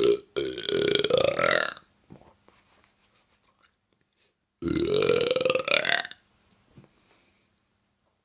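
A woman belching: two long, loud burps about three seconds apart, each rising in pitch.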